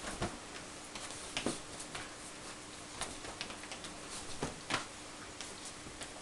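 Irregular sharp clicks and light taps from a basenji moving about and pawing at a stuffed toy, its claws striking a cowhide rug. A faint steady hum lies under them.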